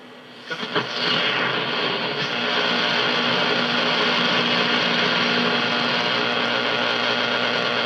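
Static hiss from a Drake SW-4A shortwave receiver's speaker as its main tuning dial is swept between stations. After a couple of clicks, a steady rushing noise sets in about a second in, with a low steady tone under it.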